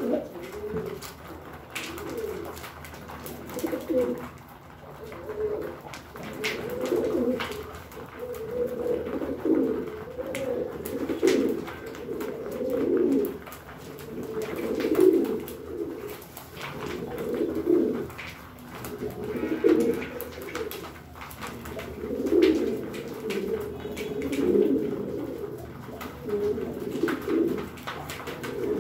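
A flock of domestic pigeons cooing continuously, with overlapping coos throughout. Many sharp clicks run over the cooing: beaks pecking grain from a plastic feeding tray.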